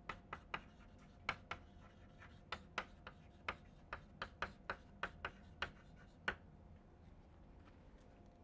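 Chalk tapping and scraping on a blackboard while words are written: a quick, irregular run of sharp taps that stops about six seconds in.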